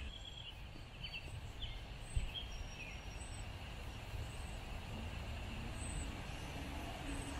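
Backyard ambience: birds chirping in short calls during the first few seconds over a steady low rumble of wind or distant traffic, with a single sharp tap about two seconds in.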